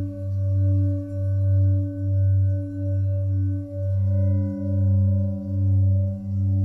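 Ambient drone of held ringing tones: a strong low hum that swells and dips about once a second, with several higher steady tones above it. About two-thirds of the way through, the higher tones change to a new, fuller chord.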